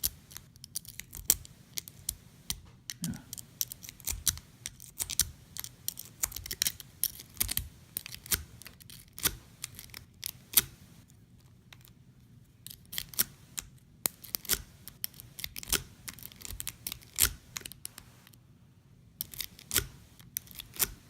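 A half-diamond lock pick being zipped in and out across the pins of a BEST pin-tumbler padlock, giving many sharp metallic clicks and scrapes in quick, irregular runs with a couple of short pauses.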